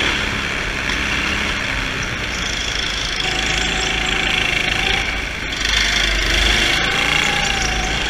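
Go-kart engine running on track, heard from the driver's helmet, its pitch rising and falling with the throttle. It eases off briefly about five seconds in, then comes back louder.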